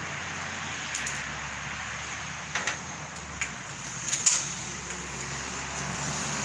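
A handful of short, sharp metal clinks from hand tools working at the spark plugs of a turbocharged Honda Civic engine, over a steady hiss.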